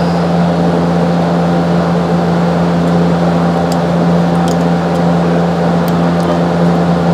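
Steady, unchanging mechanical hum from a running motor, with a few faint light clicks of metal parts being handled about halfway through.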